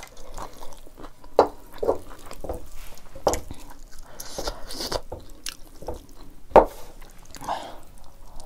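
Fingers squishing and mixing broth-soaked rice on a steel plate, with liquid poured from a steel bowl at the start: a string of short wet squelches and drips. The sharpest squelch comes about six and a half seconds in, and there is some chewing near the end.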